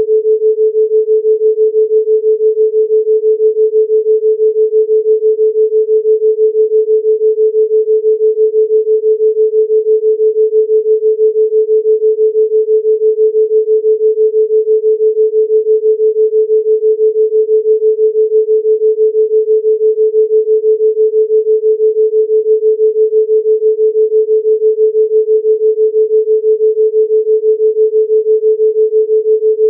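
Pure 432 Hz sine tone held at one pitch, with a rapid, even throb in loudness: a theta binaural-beat tone.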